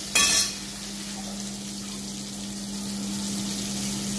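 Rui fish steaks frying in oil in a stainless steel pan, an even steady sizzle with a steady low hum underneath. A short loud burst of noise comes right at the start.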